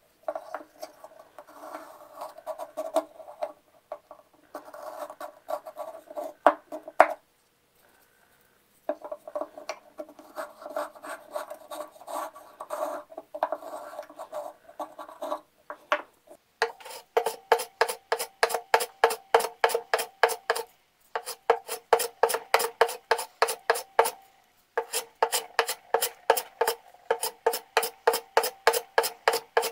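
Hand planes cutting pear wood. First a small wooden plane works along the edge of the blank in quick rasping strokes, stopping twice. Then, from about halfway, a metal bench plane takes crisp, evenly spaced strokes, about three or four a second, with two short pauses.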